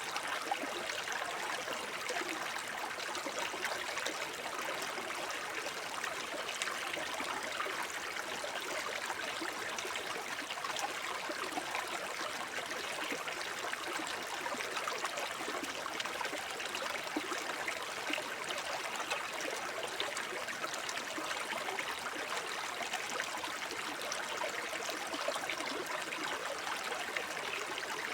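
Shallow forest brook babbling over stones: steady trickling and gurgling water with many small splashes.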